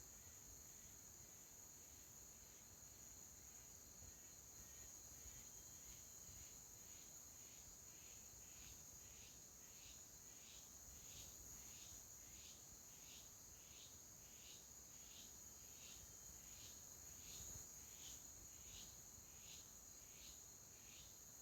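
Faint forest insects: a steady high-pitched cricket-like trill with a second insect chirping regularly, about two chirps a second, which become clearer a few seconds in.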